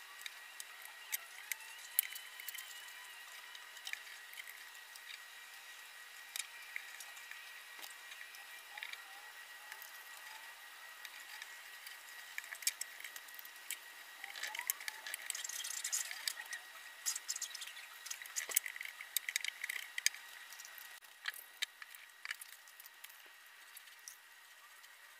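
Paintbrush working thick elastomeric waterproofing paint into the corners of a plywood box: faint, wet, squishing strokes with many small clicks and taps. A thin, steady high tone hums underneath.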